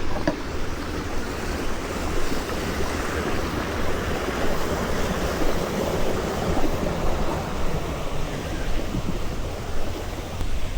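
Steady rushing noise with a low rumble underneath, with no clear breaks or single events.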